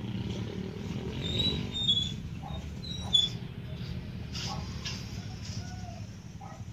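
Plasser & Theurer OBW-10s track maintenance vehicle's diesel engine running with a steady low rumble as it moves slowly away along the rails. A few short high chirps come about one and a half and three seconds in.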